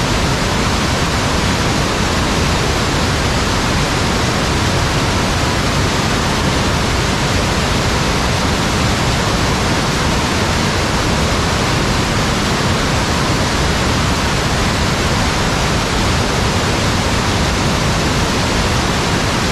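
Waterfall heard close up: a loud, steady rush of falling water.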